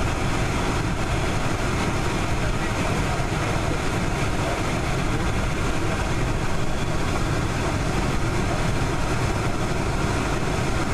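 Boeing 747-400's jet engines running at low taxi power, heard from inside the passenger cabin as a steady, even noise.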